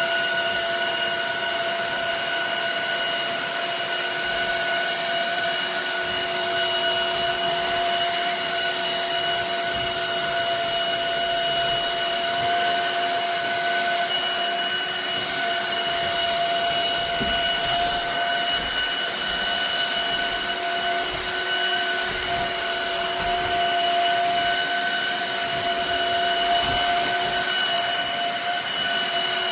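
Shark HydroVac MessMaster wet-dry vacuum mop's motor running at a steady pitch: a high whine over rushing air.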